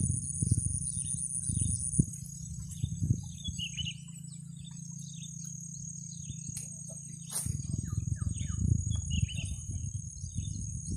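Outdoor marsh ambience: a steady high-pitched insect drone with many short bird chirps over it. Under these runs a low, uneven rumble that is strongest in the first two seconds and again from about seven seconds in.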